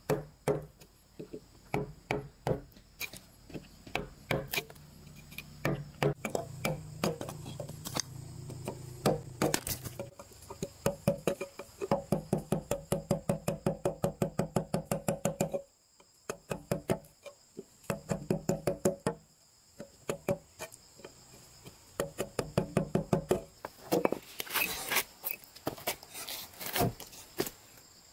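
Steel wood chisel being struck again and again as it chops mortise slots into a timber post. The sharp blows come in uneven groups with short pauses, and around the middle there is a fast, even run of about six a second.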